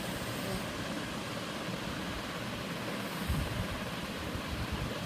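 Steady background noise, a mix of hiss and low rumble, with a brief low thump about three seconds in.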